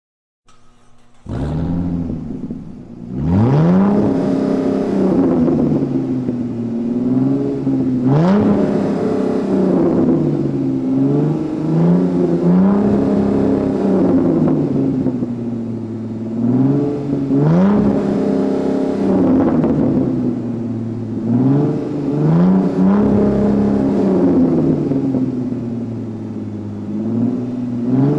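Car engine being revved repeatedly: it comes in about a second in, and every few seconds the pitch climbs sharply, then falls back to a steady idle.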